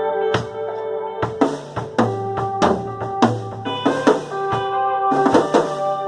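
Live band music: a drum kit playing a run of hits and fills over held chords from other instruments.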